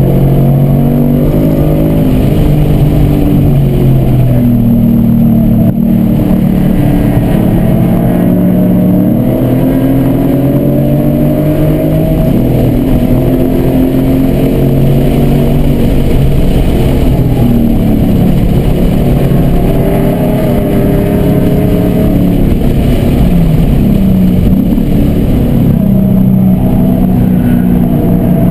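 Car engine heard from inside the cabin at speed on a race track, its pitch climbing under full throttle, then falling as the car brakes and slows near the end.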